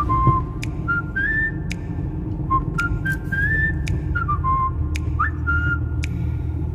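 Background music with a whistled melody of stepping, gliding notes and sharp snap-like clicks, over the steady low rumble of a Ford Super Duty diesel pickup's engine and road noise in the cab.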